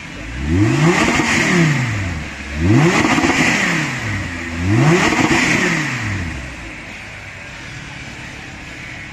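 Audi R8 sports car engine revved three times in a row, each rev climbing and falling back over about two seconds.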